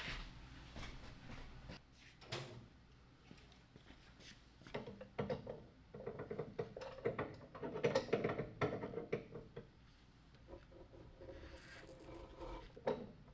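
Scattered clicks, knocks and rubbing of tools and parts being handled at a workbench, busiest in the middle.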